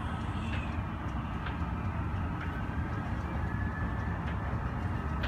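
Steady low rumble of airport apron noise, with a few faint clicks and a faint high whine that rises slightly about halfway through.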